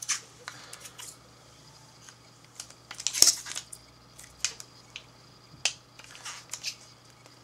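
Scattered clicks, taps and brief rustles of a small plastic Apple Universal Dock being lifted out of its box and turned over in the hands, with one sharper knock about three seconds in.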